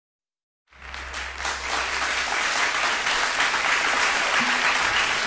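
Audience applauding, fading in about a second in after a brief silence and then holding steady.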